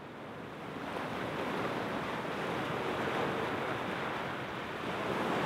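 Gentle surf washing on a sandy beach: a steady rushing noise that fades in over the first second and swells slightly a couple of times.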